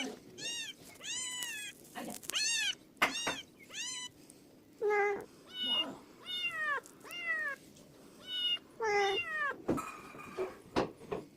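A cat meowing over and over: about a dozen short meows, each rising and then falling in pitch, some higher and some lower.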